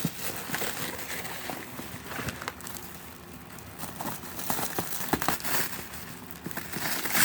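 Paper and packaging rustling and crinkling as a box is opened and its contents handled, with scattered small clicks and knocks.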